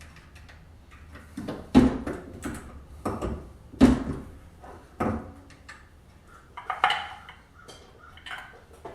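Sharp metallic clinks and knocks of brass cartridges and reloading tools being handled on a bench, a few separate strikes with the two loudest a little under 2 s and about 4 s in, and a short clatter near the end.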